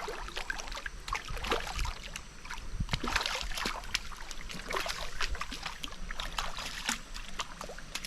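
Water splashing and sloshing in irregular short bursts.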